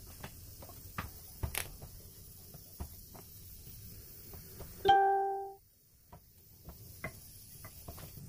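Wooden rolling pin and hands knocking lightly on a granite countertop as a sheet of dough is rolled and folded. About five seconds in, a single loud plucked chime-like note rings out and fades in under a second.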